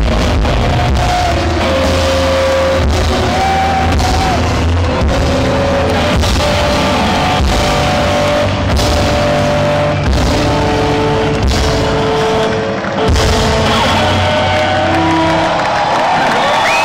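Rock band playing live, recorded from among the audience: drum hits under sustained guitar and keyboard tones, loud and steady, with a brief drop in level about thirteen seconds in.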